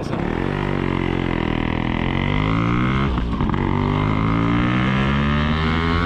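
Yamaha RX100's two-stroke single-cylinder engine pulling away under acceleration, its buzzing note rising steadily with the revs. About three seconds in the revs drop briefly and then climb again.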